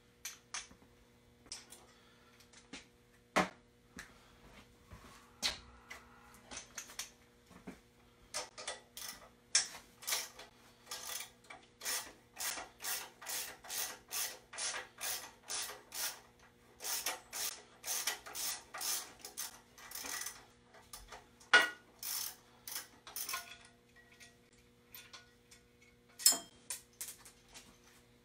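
Hand ratchet wrench clicking in a long run of even strokes, about two clicks a second, as bolts are backed out of the front of the engine. A few sharper metallic knocks of tools against metal stand out, over a faint steady electrical hum.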